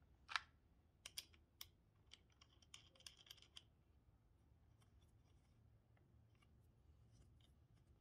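Battery positive terminal clamp being fitted back onto the post and tightened down: a string of faint metallic clicks and scrapes in the first three and a half seconds, then near quiet.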